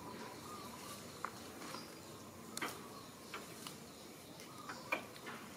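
Faint outdoor background with a handful of short, sharp clicks and chirps scattered through it; the loudest comes near the end.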